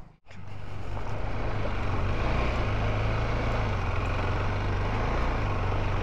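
KTM 390 Adventure motorcycle running at a steady pace while being ridden, a low even engine drone with road and wind noise. The sound starts just after a short dropout at the very beginning.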